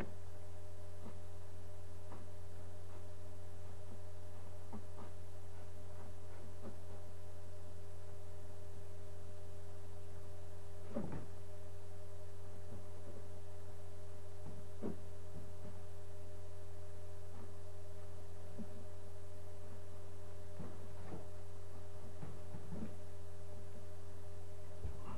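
Steady electrical hum with a faint steady whine above it, and now and then a few faint taps from kittens pawing at a TV screen and its glass stand, the clearest about eleven seconds in.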